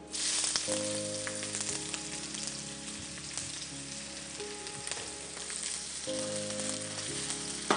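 Sliced onions sizzling in hot oil in a frying pan. The sizzle bursts up loudest as the onions go in, then settles to a steady, lower sizzle.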